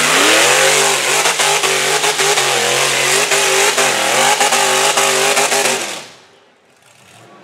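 Off-road rock buggy's engine revving hard at high throttle on a steep climb, its pitch wavering, with scattered sharp knocks. The engine sound drops away suddenly about six seconds in.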